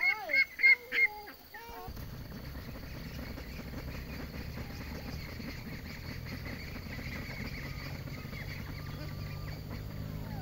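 A quick run of short, loud animal calls, about five in a second, which stop after about a second and a half. Then a steady low rumble sets in abruptly about two seconds in and carries on.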